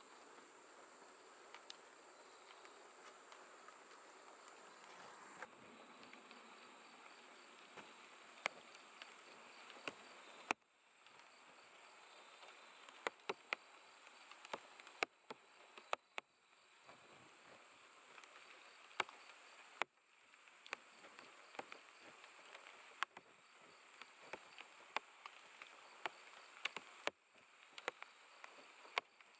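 Night-time grass insects such as crickets chirring faintly and continuously in a steady high-pitched trill, with scattered sharp ticks over the top.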